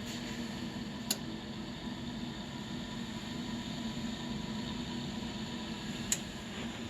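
A steady motor hum with an even hiss, broken by two sharp clicks, one about a second in and one near the end.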